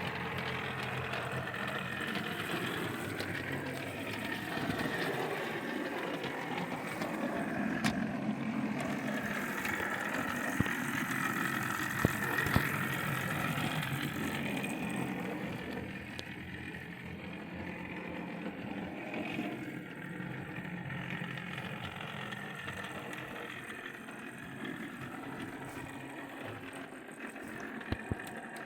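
O gauge model locomotive running along the track, a steady whirr and rumble with a few sharp clicks. It fades somewhat after about halfway.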